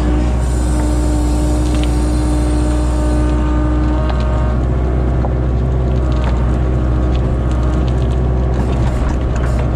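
Kubota KX057-4 mini excavator's diesel engine running steadily under hydraulic load, with a steady whine in the first few seconds. Soil and stones tip from the bucket onto a pile, giving scattered light clatters through the middle of the clip.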